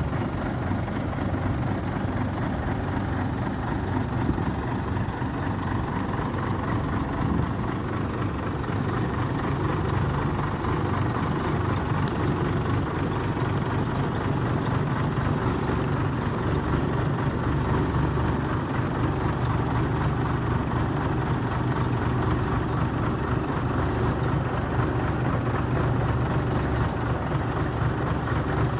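Excavator's diesel engine running steadily under work, with a few faint clicks in the middle.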